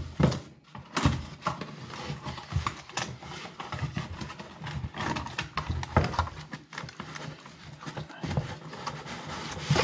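Cardboard packaging being handled: sliding, scraping and rustling of cardboard with many short knocks as pieces are pulled out of a box.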